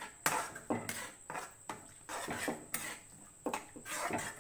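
Metal spatula scraping and stirring thick cornflour-bound gravy around a kadai, in a run of short strokes roughly two a second. The sauce is being stirred as it thickens.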